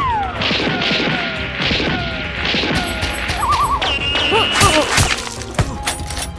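A rapid string of sound effects: quick falling whistle-like glides, hits and crashes, with a short warbling tone about halfway through and a held high tone near the end.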